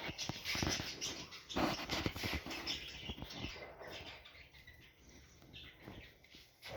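Parrots calling in short scratchy chirps and clicks, busiest in the first few seconds and thinning out after about four seconds.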